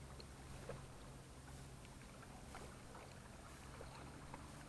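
Near silence: a faint steady low hum with a few soft, scattered ticks.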